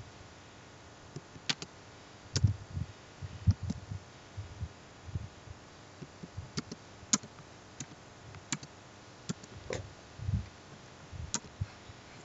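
Slow, irregular keystrokes on a computer keyboard: single sharp clicks a second or more apart, with soft low thumps in between.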